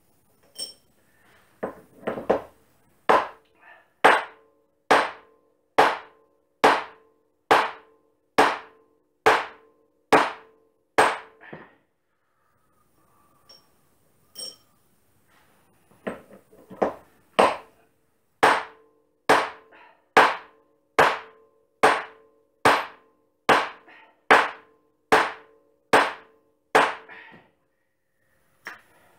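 Hammer blows on a turned steel forming die, driving a ring of metal tube down over it to shape a rope thimble. Two runs of about a dozen steady blows, roughly one a second, each with a short metallic ring, with a pause of a few seconds between the runs.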